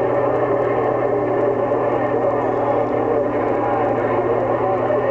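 CB radio receiver on 27.025 MHz carrying a steady jumble of overlapping distant signals: many warbling, wavering tones and distorted transmissions with no clear words, over a low hum.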